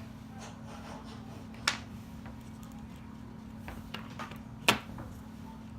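Small repair tools clicking and tapping against an iPhone 6's internals while tiny screws are taken out: two sharp clicks about three seconds apart, with a few fainter ticks between them, over a steady low hum.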